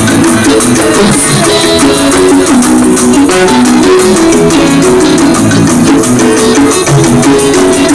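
Live dance-band music played loud: melodic guitar lines shifting over drum kit and shaker percussion, with no lead singing.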